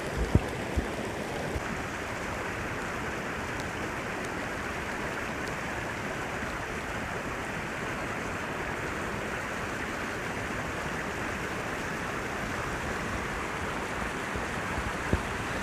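Steady rushing of creek water, an even hiss with no rhythm, with a few soft thumps about a second in.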